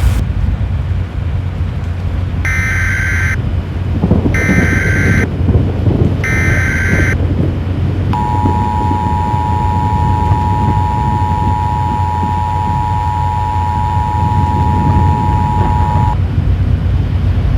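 Emergency Alert System broadcast tones: three short bursts of the warbling SAME header data, about two seconds apart, then the steady two-tone EAS attention signal held for about eight seconds. All of it plays over a loud, steady low rumble.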